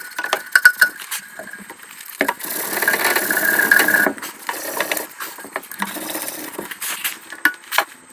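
Hand work on an air compressor's cylinder head: scattered clicks, knocks and light rattles of tools and metal parts, with a longer rasping stretch from about two to four seconds in.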